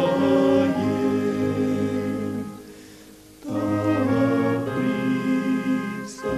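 Slow hymn music of long held chords with a choir-like sound; it fades almost away about three seconds in, then starts again.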